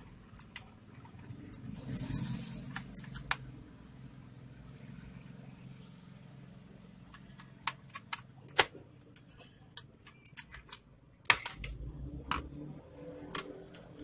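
Scattered sharp clicks and taps of a small screwdriver and metal pry tool against a laptop's metal hard-drive caddy and plastic base, coming thicker in the second half. A brief hissing rush sounds about two seconds in.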